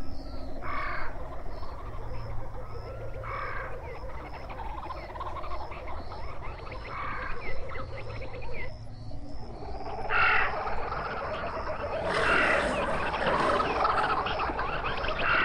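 Wildlife ambience: short animal calls repeating about every three seconds over a steady, rapid high chirping, the whole chorus growing busier and louder near the end.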